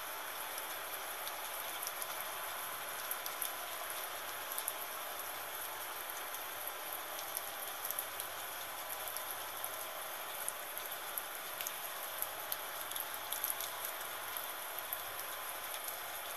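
Gentle rain falling steadily: a dense, even hiss of rain with many small, separate drop ticks scattered through it.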